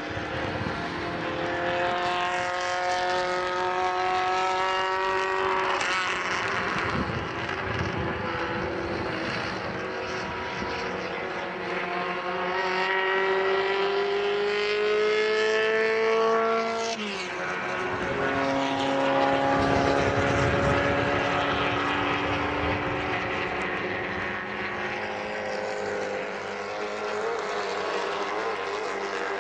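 Engines of several small 850 cc race cars running at high revs, the pitch climbing steadily as they accelerate. About seventeen seconds in the pitch drops sharply, then climbs again.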